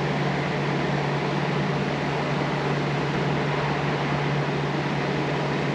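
Steady fan hum with an even hiss of moving air, unchanging in level.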